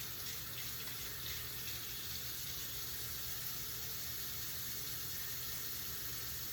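Kitchen tap running steadily into a sink as utensils are washed under it, with a few faint clinks in the first second or so.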